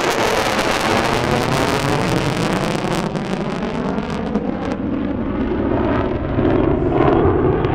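Rockwell B-1B Lancer's four General Electric F101 afterburning turbofans with afterburners lit as the bomber passes overhead and heads away: a loud jet roar with crackle and a sweeping, phasing quality. It eases slightly as it recedes.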